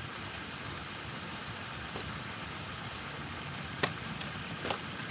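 Steady outdoor background hiss with two sharp clicks near the end, less than a second apart.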